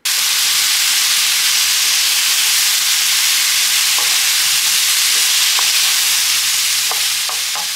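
Chicken and vegetables sizzling loudly as they stir-fry in a wok, a steady hiss that starts suddenly. A wooden spoon ticks against the pan a few times in the second half, and the sizzle eases off slightly near the end.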